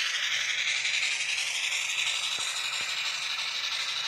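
N-scale steam locomotive's DCC sound decoder playing its steam sound through the locomotive's small onboard speaker: a steady hissing chuff with a slight regular pulse, slowly getting quieter.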